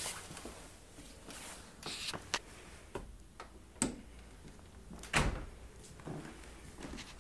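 Footsteps on a hardwood floor, with irregular knocks and creaks about once a second, the loudest about five seconds in.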